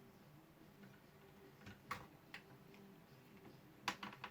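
Near silence broken by a few faint, sharp clicks from small plastic laptop parts and cable connectors being handled during disassembly, around two seconds in and again near the end.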